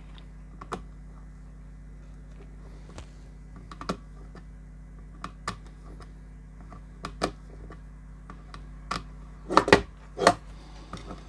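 Small scattered clicks and taps from fitting power and signal leads into connectors, about one a second, with a louder cluster of three or four knocks about ten seconds in, over a steady low hum.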